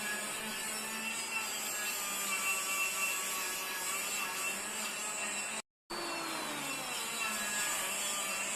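Steady mechanical noise of a power tool running in a metal workshop, broken by a split-second dropout to silence a little past halfway.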